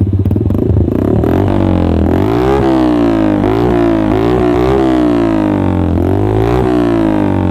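Motorcycle engine running through an SC Project-style short aftermarket silencer. It idles, then from about a second in it is revved repeatedly, the pitch rising and falling with each throttle blip.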